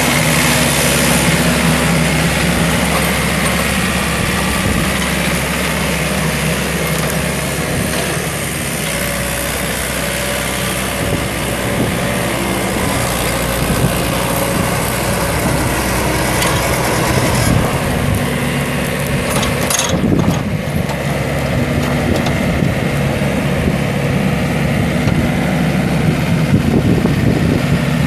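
John Deere 1600 Turbo wide-area mower's Yanmar four-cylinder diesel engine running at a steady speed as the mower drives.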